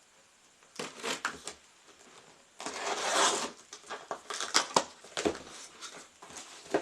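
Packaging being handled and torn open: crinkling and crackling, with a longer tearing rip about three seconds in and scattered clicks.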